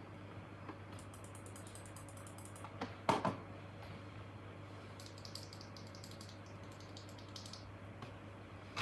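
Typing on an F65 mechanical keyboard with stock, unmodified Graywood v3 switches: two runs of quick keystrokes, with a louder, deeper thud about three seconds in.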